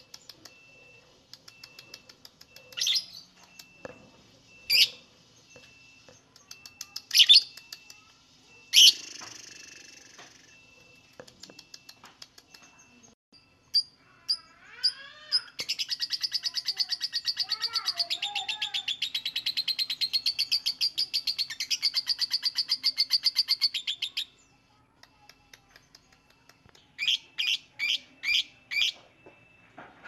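Fischer's lovebird calling: a few loud, sharp single shrieks, then a long, fast chattering trill lasting about nine seconds (the 'ngekek' song that keepers prize), then a quick run of five sharp calls near the end.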